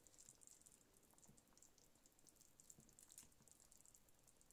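Very faint soft ticking and crackling of the pork rib and radish soup simmering in the pot, with a few soft low knocks.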